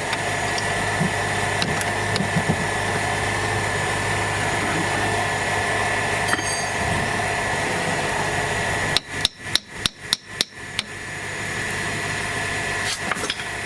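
A hammer strikes metal about seven times in quick succession, about nine seconds in. Under it, the BMW X5 E70's engine idles steadily.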